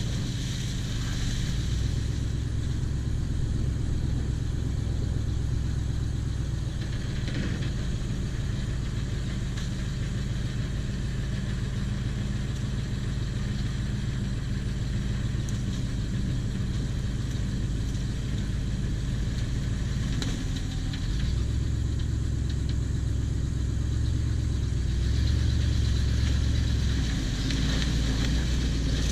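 Diesel engine of a Cat 304 mini excavator running steadily, its pitch dipping and then settling to a new note about two-thirds of the way through, as with a change in load.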